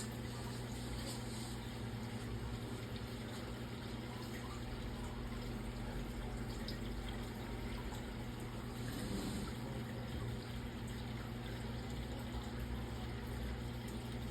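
Aquarium filter running: a steady trickle of water falling into the tank over a low, steady hum.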